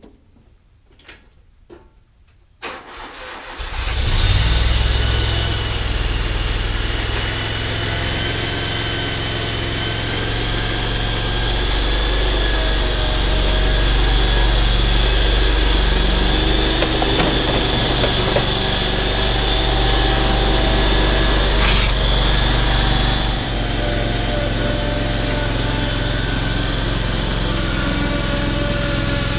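Ferris Z3X stand-on mower's engine cranked and started about three seconds in, then running steadily as the mower is driven, with a sharp click near the end.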